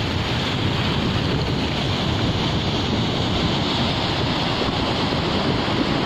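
Sea surf washing in over a sandy beach: a steady rush of breaking waves and spreading foam, with wind buffeting the microphone.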